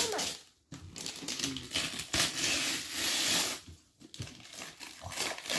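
Wrapping paper being torn and crinkled off a present, in rustling bursts over about three seconds.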